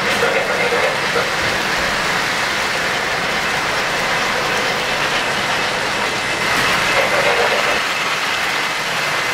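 O-gauge three-rail model trains running past on the track: a steady rolling rattle of metal wheels on the rails.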